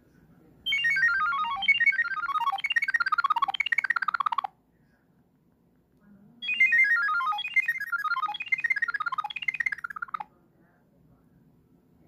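Nokia 6016i's monophonic ringtone sounding for an incoming call: single electronic beeps in quick runs that fall in pitch, four runs to a phrase. The phrase plays twice, with a pause of about two seconds between.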